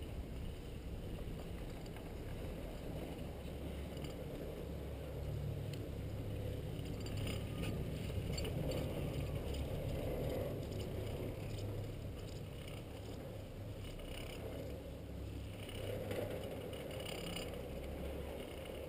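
Ride on a chairlift heard from the chair: a steady low rumble of wind and the running lift, with scattered light clicking and rattling, clustered near the middle and again near the end.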